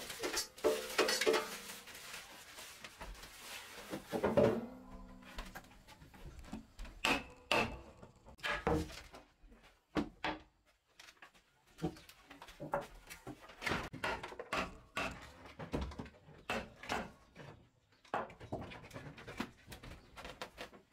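Scattered knocks, clatters and scrapes of work by hand: a long wooden plank being picked up and set down on a brick and concrete stove top, with things handled around it on a wooden floor.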